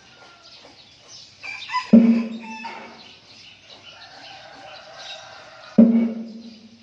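Thai temple pong, a large hollow wooden slit gong, struck twice with a mallet, about two seconds in and again near the end. Each blow gives a low hollow knock that rings on for about a second. It is the morning signal for monks to go out on their alms round, and birds chirp between the blows.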